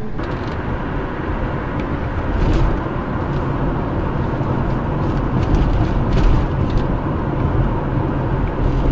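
Steady road and engine noise of a car driving, heard from inside the cabin through a dash cam's microphone. The noise swells a little now and then.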